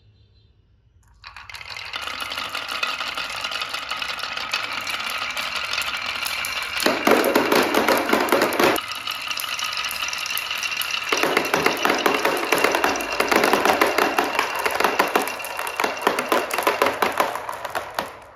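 Many glass marbles rolling and clattering down a wooden HABA marble run: a dense stream of quick clicks over a steady rolling sound. It starts about a second in and grows louder twice, around the middle and through the second half, as more marbles pour through together.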